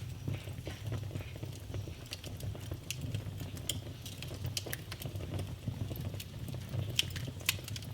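Wood fire burning in a fireplace: a steady low rumble of flames with scattered sharp crackles and pops, two of the louder pops coming close together about seven seconds in.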